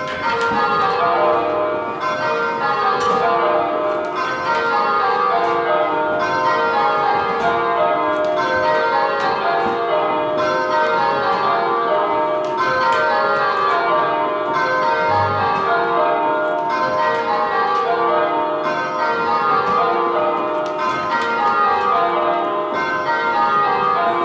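A ring of church tower bells rung full-circle by hand in an even, continuous stream of strikes, each row stepping down in pitch from treble to tenor. The bells are rung in dynamic pairs (kaleidoscope ringing), pairs of bells holding long places or swapping.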